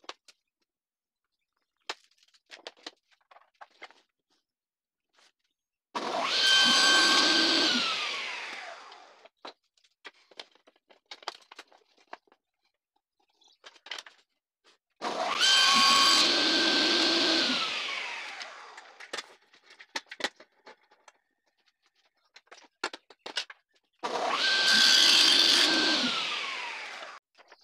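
Table saw switched on three times, about nine seconds apart: each time its whine comes in suddenly, holds for a short cut in a small board, then falls in pitch as the blade winds down after switch-off. Light knocks of wood being handled on the saw table come in between.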